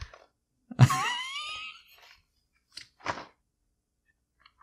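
A wordless, puzzled vocal sound from a man, a short 'hmm' that rises and falls in pitch, about a second in. Then two soft rustles of a paper game booklet being handled.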